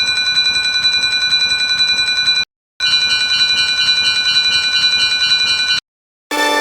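Railroad crossing warning alarm ringing in a rapid, steady trill of high tones. It comes in two bursts of about two and a half and three seconds, with a brief break between them.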